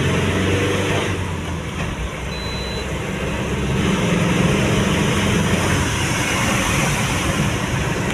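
Tata 1618 truck's diesel engine running on the move, heard from inside the cab with road and wind noise. It is steady, growing a little louder about halfway through.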